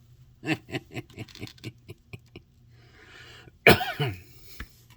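A man's voice making non-speech sounds: a quick run of short chuckle-like pulses, then one loud, sudden cough-like burst about three and a half seconds in.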